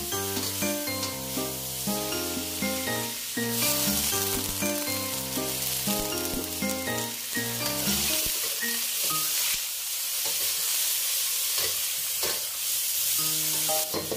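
Tofu and garlic greens sizzling in a hot wok as they are stir-fried and tossed with a metal spatula. The sizzle grows louder a few seconds in. Background music plays under it for the first half and comes back near the end.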